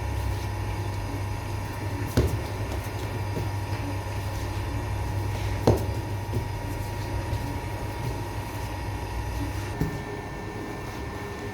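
Steady low mechanical hum of bakery equipment, with two sharp knocks about two and six seconds in. A higher steady tone joins near the end.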